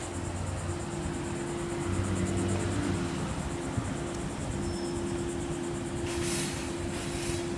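Steady mechanical hum with one held tone, under a faint pulsing high insect buzz; about six seconds in a burst of hiss lasts just over a second.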